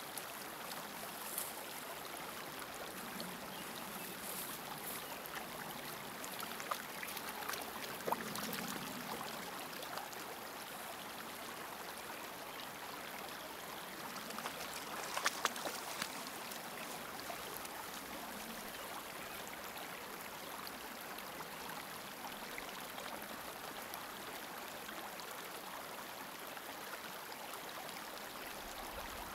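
Steady rush of running water, like a small stream, with a few light splashes and crackles about 8 and 15 seconds in.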